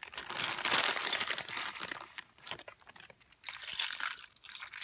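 A packet of loose metal lock keys being handled, the keys clinking and jangling. There is a short lull about two seconds in, then louder jangling about three and a half seconds in.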